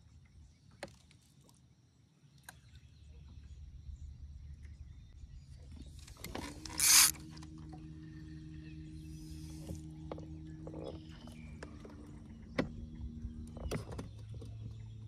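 A boat's electric trolling motor humming steadily, its pitch shifting a couple of times as its speed changes. A loud, short burst of hissing noise comes about seven seconds in, with scattered light clicks and knocks.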